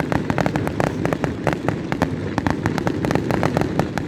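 Fireworks display going off: rapid, dense popping and crackling, many sharp reports a second, over a continuous low rumble of bursts.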